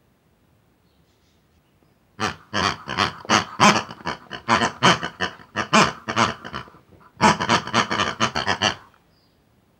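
Rapid pig-like oinking and grunting, the voice of the toy pigs. It starts about two seconds in, breaks off briefly near seven seconds, resumes, and stops shortly before the end.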